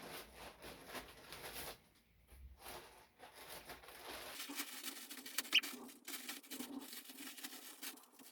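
A shipping package being opened by hand: irregular scratching, rustling and crackling of the packaging.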